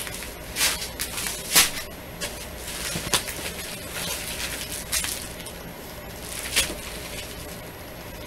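Plastic bags of round resin diamond-painting drills rustling and crinkling as they are handled, in several short bursts.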